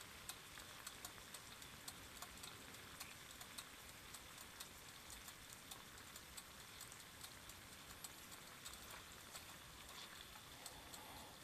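Marinated bulgogi beef sizzling quietly on an electric hot plate: small irregular pops and crackles of spitting fat and sauce, several a second, over a faint steady hiss.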